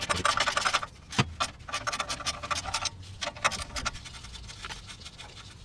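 Socket ratchet clicking in quick runs as exhaust bolts are worked loose, with one knock about a second in.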